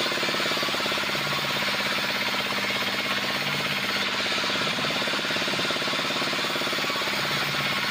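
Sawmill band saw cutting through a log, its stationary engine running with a fast, even knocking pulse under the steady hiss of the blade in the wood.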